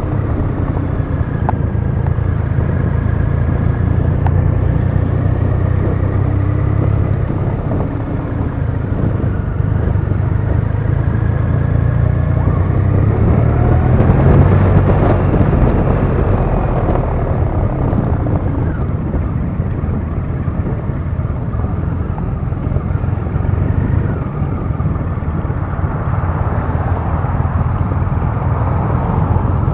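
Triumph Rocket III Classic's 2.3-litre three-cylinder engine running steadily at low road speed, heard from on the bike with road and wind noise; the sound swells a little louder about halfway through.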